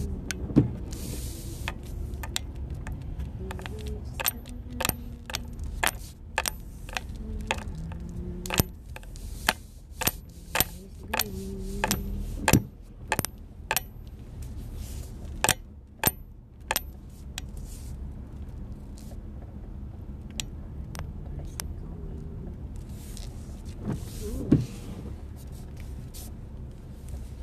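Inside the cab of a 2005 Ford Explorer Sport Trac in the rain: many irregular sharp taps of raindrops on the roof and windshield, and three windshield-wiper sweeps, about twelve seconds apart, each with a short squeak of rubber on glass. A low steady rumble runs underneath, and the taps thin out in the second half.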